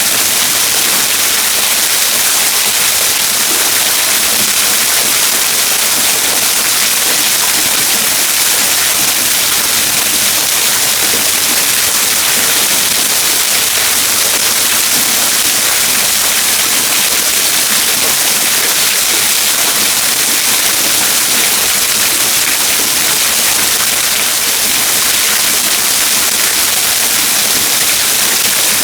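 Waterfall: water pouring and splashing in a steady, loud rush with a hissing edge.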